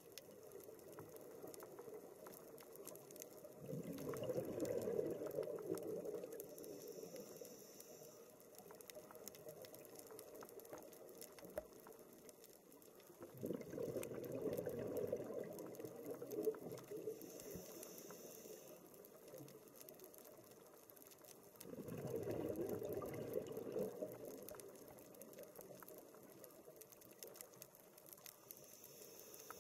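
Scuba diver breathing through a regulator underwater: three rushes of exhaled bubbles, each two to three seconds long and several seconds apart. A short, faint high hiss of inhalation comes between them, over a faint steady crackle.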